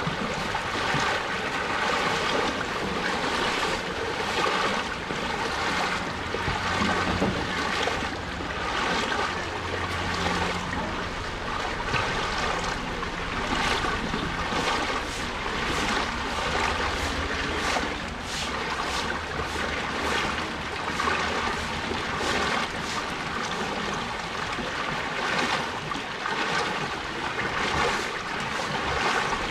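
Floodwater rushing across a road: a steady wash of running water with splashing, and a low steady hum underneath for several seconds in the first part.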